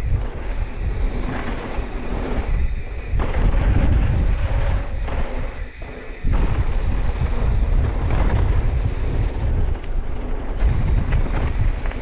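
Heavy wind rumble on a camera microphone riding down a dirt mountain-bike trail at speed, with tyre noise and rattling from the Pivot Switchblade mountain bike beneath it. The rumble eases off briefly about six seconds in, then comes back abruptly.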